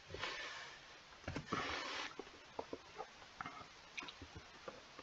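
Scattered computer mouse clicks, with two short breathy rushes of noise in the first two seconds.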